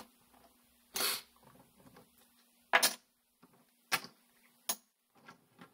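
Casino chips clacking together as they are picked up and stacked by hand: four sharp clacks spaced about a second apart, with a few fainter ticks near the end.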